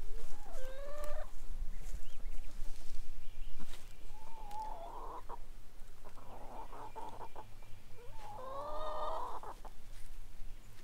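Hens calling, about four drawn-out calls, each bending in pitch, spread through the stretch.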